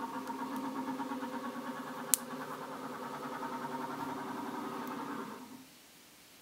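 A motor running with a steady hum that stops about five and a half seconds in, with one sharp click about two seconds in.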